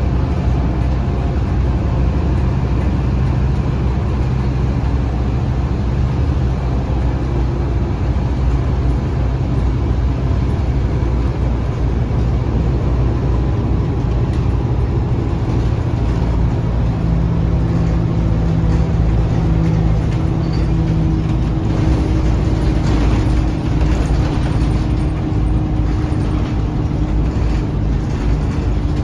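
Scania K230UB bus's 8.9-litre five-cylinder diesel engine and ZF Ecomat automatic drivetrain running as the bus drives along, heard from inside the cabin near the rear. A steady low drone.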